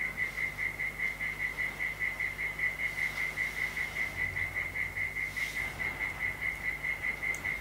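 A calling animal: a high note pulsing steadily about five times a second, without a break.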